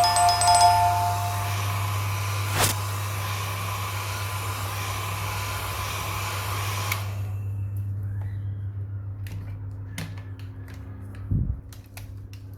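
Hot-air blower running with a steady rush, with a short two-tone beep at the start; the air cuts off about seven seconds in. A low hum and a few light clicks follow.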